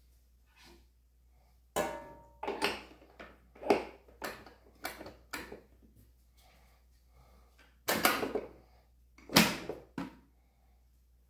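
Kitchen baking tools being handled and set down on a worktop: about ten irregular knocks and clatters. The first, about two seconds in, rings briefly with a clear tone, and the two loudest come near the end.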